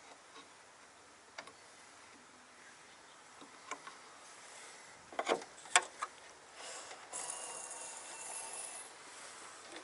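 A few sharp clicks and knocks about five seconds in, then a few seconds of scraping and rubbing, as the lower end of a VW MK4 hood strut is worked onto its ball-stud mount by hand. The end fitting refuses to seat because its retaining clip is bowed out.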